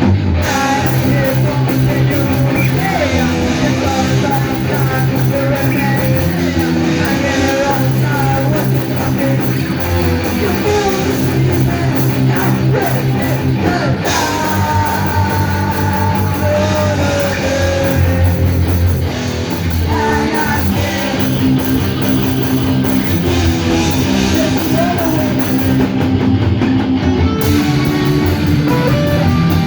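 Live punk rock band playing loud: distorted electric guitar, bass and drums, with singing.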